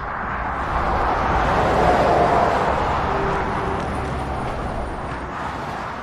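Motorway traffic passing below: a steady rush of tyre and engine noise that swells as vehicles go by, loudest about two seconds in, then easing off near the end.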